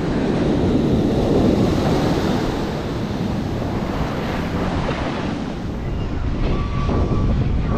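Surf and wave wash surging in the water, with wind blowing across the microphone. Near the end a faint steady tone comes in.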